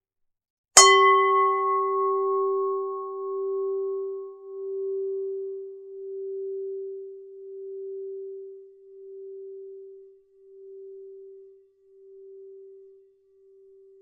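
A Buddhist standing bell (bowl bell) struck once about a second in. Its bright upper overtones die away within a couple of seconds, leaving a single ringing note that pulses slowly as it fades almost to nothing over about thirteen seconds.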